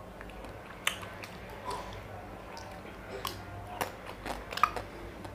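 Close mouth sounds of eating a chocolate-coated ice cream bar: wet chewing and smacking with scattered sharp clicks, the sharpest a little before the end.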